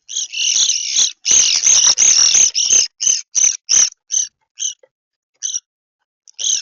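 Choppy audio from the Birdfy smart bird feeder camera's own microphone: a string of short, high-pitched chirpy bursts, several a second and thickest in the middle, each cutting off sharply into silence.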